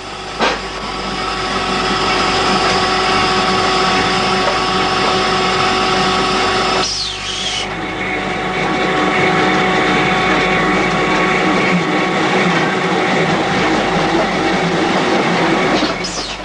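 Underground scraper winch running steadily as it hauls the ore scraper box on its wire rope. It makes a loud, continuous machine noise with a high whine, and the pitch dips briefly about seven seconds in.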